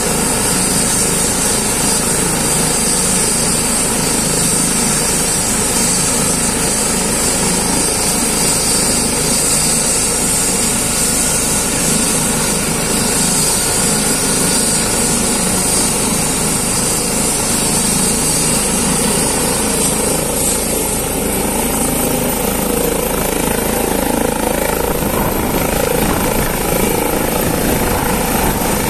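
Eurocopter EC135 air-ambulance helicopter running with its rotors turning, a steady rotor and turbine noise with a high whine. About two-thirds of the way through, the whine climbs in pitch as power comes up, and the helicopter lifts off near the end.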